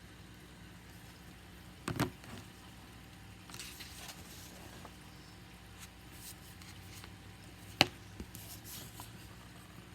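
Quiet room hum with two sharp clicks, about two seconds in and near the end, and soft rustling between them.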